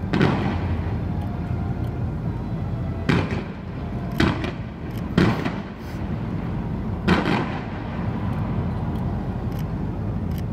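Show pyrotechnics firing: five loud bangs, each with a short echoing tail. One comes at the start, three follow about a second apart, and one more comes two seconds after those, all over a steady low rumble.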